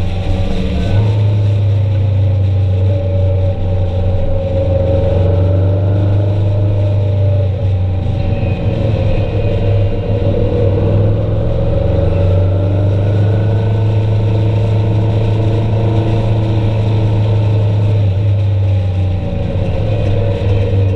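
A vehicle engine running steadily while driving, its pitch drifting slowly up and down with changes in speed, over a constant low hum and road noise.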